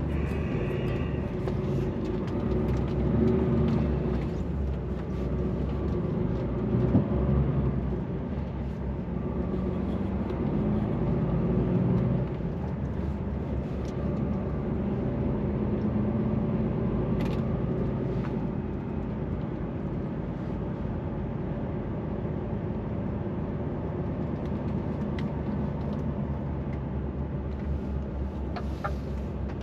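DAF truck's diesel engine heard from inside the cab as the truck drives slowly, a low steady hum that is louder and more uneven for the first dozen seconds as it pulls through a turn, then settles quieter and steady.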